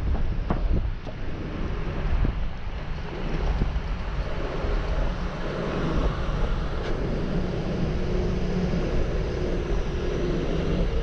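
Wind buffeting the microphone over a steady low engine drone, with a few faint clicks.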